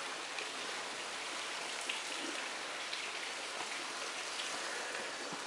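Steady hiss of rain falling on wet pavement and stone, with a few faint drip ticks.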